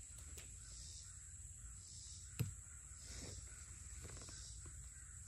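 A single machete chop into dead wood about two and a half seconds in, short and sharp, against a steady high-pitched insect hum.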